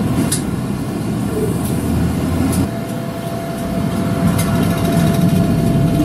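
Route bus running, heard from inside: a steady low engine and road rumble with a few brief rattling ticks, and a faint steady whine coming in about halfway.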